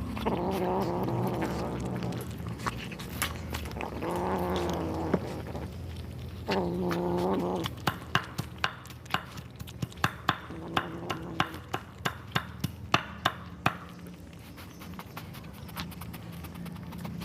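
Kittens give four drawn-out, wavering growling cries, each about a second long, while eating raw chicken heads. In the middle stretch come sharp crunching clicks, about two or three a second, as they chew through the bone.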